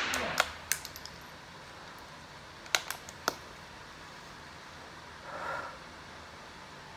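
The tail of a rifle shot fading away, then sharp metallic clicks of the rifle's bolt being worked to eject and reload: four quick clicks in the first second and three more about three seconds in.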